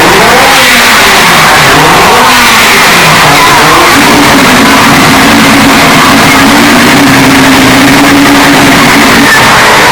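Mazda 767B's four-rotor rotary engine revving, its pitch rising and falling for the first few seconds, then holding a steady high note until near the end. The audio is boosted to the point of heavy distortion.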